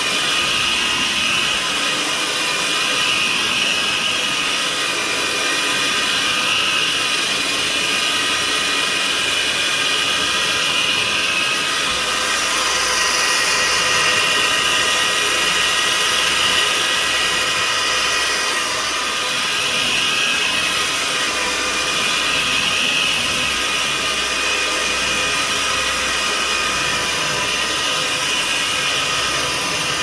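Vacuum cleaner with a powered carpet head running steadily over carpet: a continuous high motor whine with a hiss on top, swelling slightly in level now and then as the head is worked back and forth.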